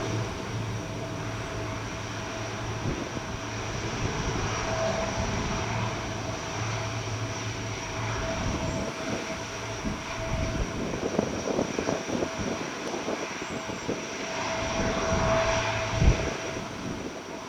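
Four-engine Allison T56 turboprops of a C-130T Hercules running steadily, a low hum with a propeller whine over it. Gusty wind buffets the microphone through the middle and later part, with a sharp thump near the end.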